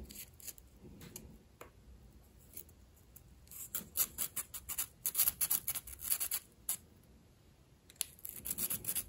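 Sandpaper wrapped on a metal ruler rasping in the slot of a tiny brass fitting in quick short strokes, opening the slot up so a ball of about 1.7–1.8 mm will slide in. The strokes start about a third of the way in, pause briefly, and start again near the end.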